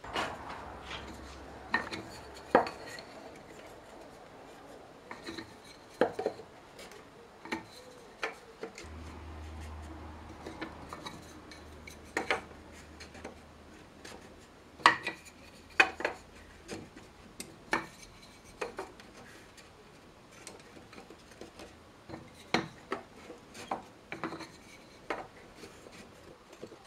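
Cherry-wood barrel staves being stood upright one by one and gathered into a raising hoop: irregular hollow wooden knocks and clatters as staves bump against each other, the hoop and the workbench.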